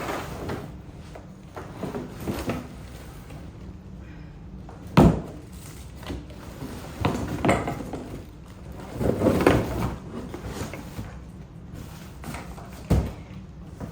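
Knocking, scraping and rustling as a boxed dump cart is unpacked and its parts handled, with a sharp thump about five seconds in and another near the end.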